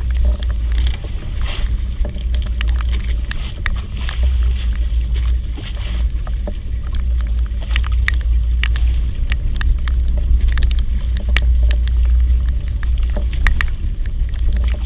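A fishing boat's engine running with a steady low rumble, with scattered sharp ticks and taps over it.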